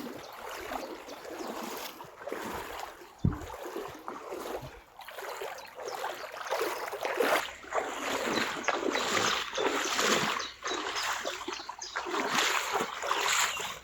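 Splashing of someone wading through shallow river water, coming in irregular surges with a single low thump a few seconds in.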